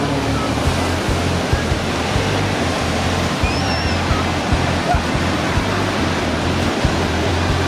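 Steady rushing noise of ocean surf with wind buffeting the microphone, after the falling drone of a passing aircraft fades out at the start.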